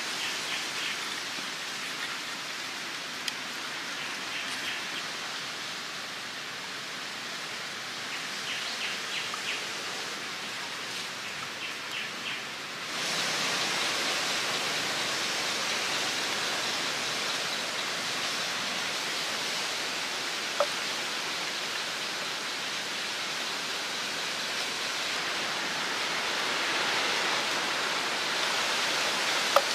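Steady outdoor background hiss that steps up in level about thirteen seconds in, with a few short bird chirps in the first half and occasional light clicks as bamboo and wire parts are handled.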